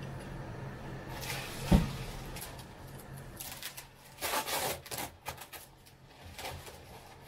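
Handling noises during unpacking: one sharp thump a little under two seconds in, then scattered rustling and knocking, strongest around four to five seconds in, over a steady low hum.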